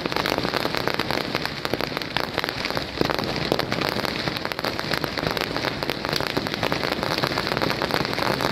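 Strings of firecrackers going off in a dense, rapid crackle that sounds like heavy rain, with a few louder pops among them.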